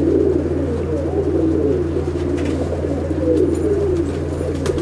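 A loft full of Andhra pigeons cooing, with many low coos overlapping at once, over a steady low hum.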